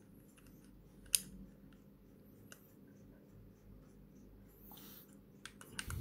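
A plastic keycap being pushed onto a mechanical key switch of a small macropad, with one sharp click about a second in, then a few faint ticks and a short scrape. Near the end comes a quick run of key clacks as keys with linear red switches are pressed.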